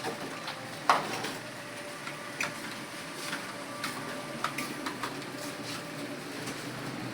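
Typing on a computer keyboard: irregular key clicks over steady background room noise, with one sharper clack about a second in.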